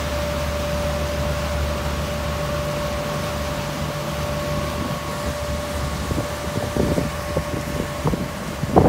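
A passenger boat's engine running at a steady cruise: a low drone with a constant whine above it, over the wash of the wake. Wind buffets the microphone in irregular gusts toward the end.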